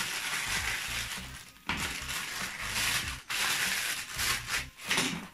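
Plastic courier mailer bag crinkling and rustling as it is handled and opened, in several bursts with short pauses between them.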